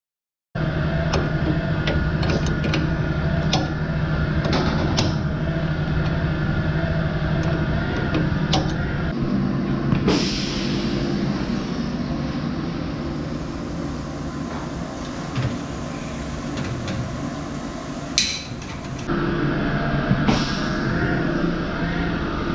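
Milking robot machinery running: a steady hum with sharp clicks and rattles. About ten seconds in the hum gives way to a hiss, and it comes back a few seconds before the end.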